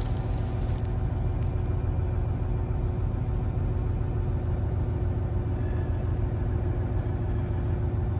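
2024 Kenworth T680 semi truck's diesel engine running steadily as the truck drives slowly, heard from inside the cab as an even, low drone.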